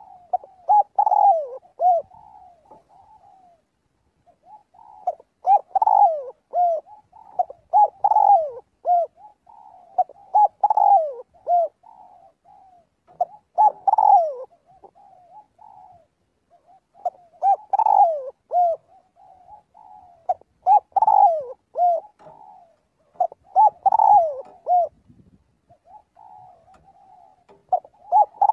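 Spotted dove cooing: phrases of several short, falling coos repeated every two to three seconds, with a few longer pauses. This is the male's advertising call, the kind used as a decoy call to draw in other doves.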